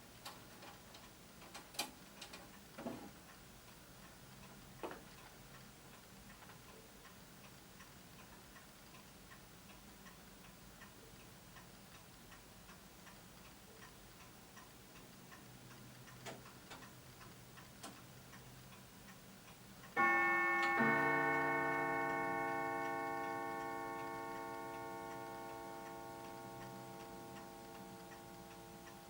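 Lenzkirch mantel clock ticking faintly, then striking a single ting-tang on its two gongs of different tones: a higher strike, then a lower one under a second later. Both ring on and fade slowly. One ting-tang is this clock's quarter-past strike.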